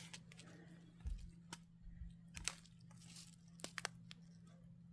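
Faint crinkling and scattered sharp clicks of small plastic bags of diamond painting drills being handled.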